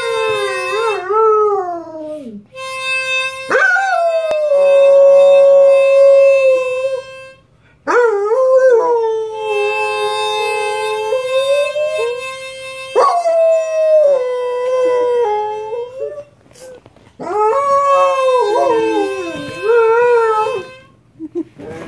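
A dog howling along with a harmonica. The harmonica holds long steady notes while the dog's howls start with a sharp rise, waver, and slide down, about five times with short pauses between.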